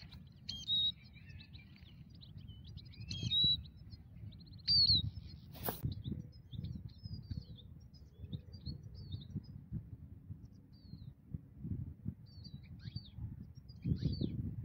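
Goldfinches twittering: short high chirps and trills, busiest in the first five seconds and again near the end, over a low, uneven rumble on the microphone. One sharp click about six seconds in.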